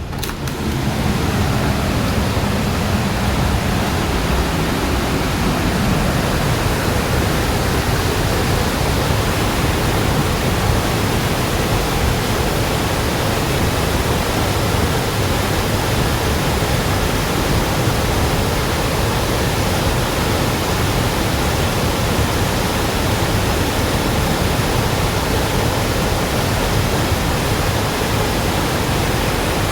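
Steady, loud rush of a mountain river swollen into a flood torrent by typhoon rain. The noise swells up within the first second.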